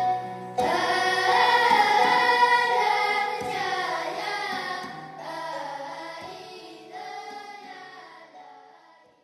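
Music with voices singing, coming in on a cut about half a second in and fading out toward the end.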